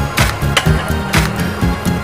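Background music with a steady beat: a bass line with a sharp drum hit about once a second.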